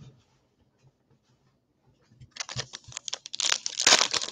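Foil trading-card pack wrapper crinkling and tearing as it is ripped open by hand, starting about two seconds in and getting louder toward the end.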